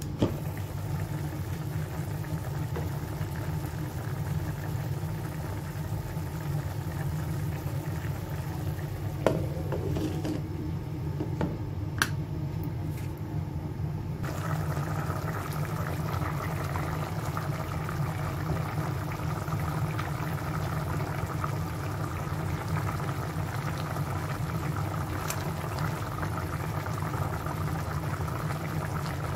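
Chicken afritada stew simmering in a pot on a gas stove: a steady bubbling hiss over a low hum, with a few faint clicks. The bubbling grows stronger about halfway through.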